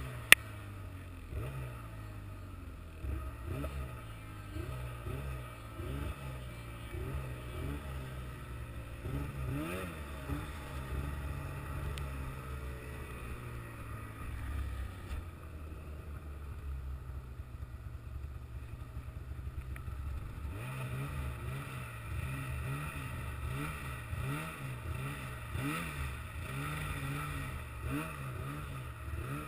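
A vehicle engine running, its pitch rising and falling again and again as the revs go up and down. There is a single sharp click about half a second in.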